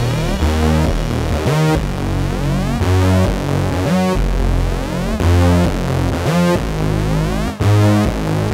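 Electronic background music led by synthesizer, with sweeping figures that repeat every second or so.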